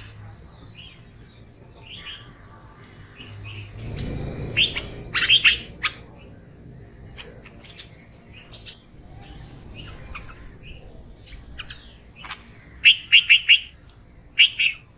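Red-vented bulbuls and house sparrows calling: scattered short chirps, with a loud cluster about five seconds in and a quick run of four loud chirps near the end.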